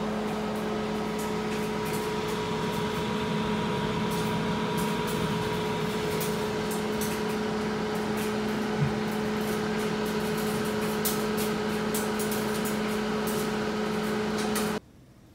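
Panasonic HomeChef 4-in-1 multi-oven's cooling fan running after a cooking cycle, a steady hum with a clear tone and scattered small clicks over it. It cuts off suddenly near the end.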